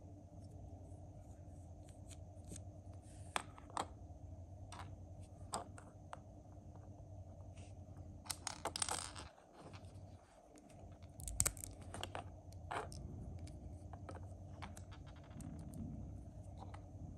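Plastic LEGO Technic pieces clicking and snapping as pins, axles and connectors are handled and pressed together, in scattered separate clicks. About halfway through there is a short rattle of parts, and a sharper, louder click follows a couple of seconds later.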